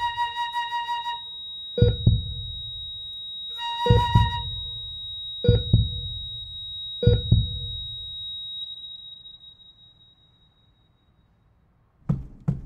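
Concert flute holding a sustained note, which stops about a second in and returns briefly around four seconds. Four deep booming hits sound about every one and a half to two seconds under a thin high steady tone, and the music dies away to near silence by about ten seconds. Near the end come a couple of sharp knocks.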